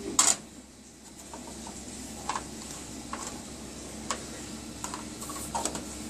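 Plastic petri dishes and their lids clicking and knocking as they are handled: one sharp knock about a quarter second in, the loudest sound, then several light clicks. Under it the biosafety cabinet's fan hums steadily.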